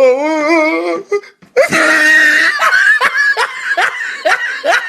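Hard, loud laughter: a wavering drawn-out vocal sound in the first second, then after a short break a run of quick breathy laughing bursts, about three a second.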